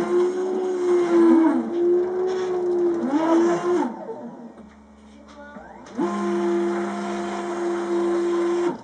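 Stepper motors of a home-built CNC router gantry whining on a dry run without cutting: steady tones with rising and falling pitch sweeps as the axes speed up and slow down, a break of about two seconds midway, then a steady run that cuts off sharply near the end.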